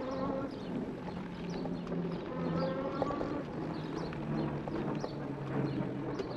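E-bike motor whining, its hum drifting up and down in pitch, over a steady patter of clicks and rattles from the tyres and bike frame on a bumpy dirt trail.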